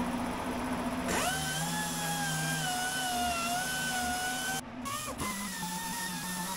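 Pneumatic random orbital sander spinning up about a second in with a rising whine, then running at a steady whine while sanding the bilge. It cuts out briefly just past the middle and comes back at a slightly higher pitch. A steady low hum runs underneath.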